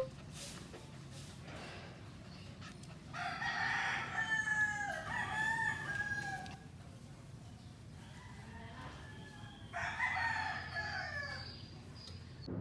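Rooster crowing twice, a long crow about three seconds in and a shorter one about ten seconds in, over a faint steady background hum.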